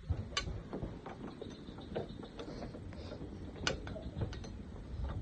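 Scattered light clicks and taps at irregular intervals over a low background rumble, two of them sharper than the rest.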